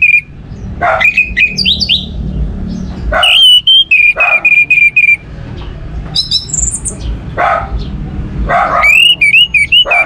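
Orange-headed thrush (anis merah) singing loudly in several bursts of clear whistled phrases mixed with sharp, scratchy chattering notes, with short pauses between bursts.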